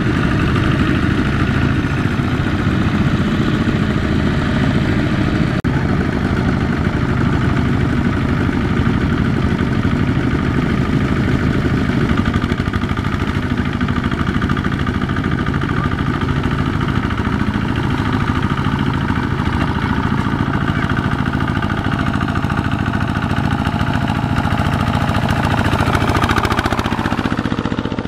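Kubota RT120 power tiller's single-cylinder diesel engine running steadily while pulling a trailer loaded with rice sacks through mud.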